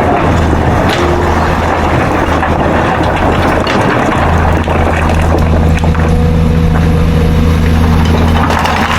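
Excavator's diesel engine running, loud and continuous, with rough noise over it in the first half and a steadier hum from about four seconds in.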